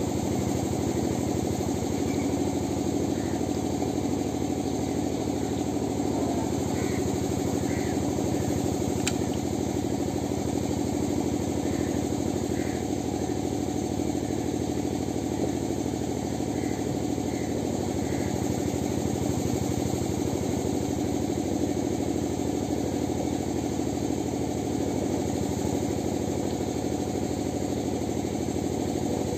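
An engine running steadily at an even idle, a constant low hum that does not change in speed or level, with a few faint high chirps over it.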